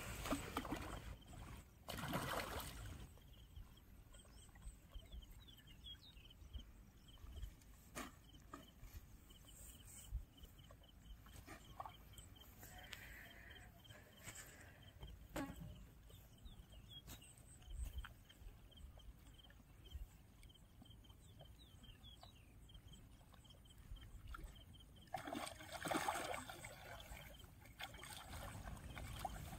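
Water splashing as a hooked rohu thrashes at the surface close to the bank, once about two seconds in and again for a few seconds near the end. Between the splashes it is quiet apart from scattered small splashes and clicks, and faint high chirping in the background.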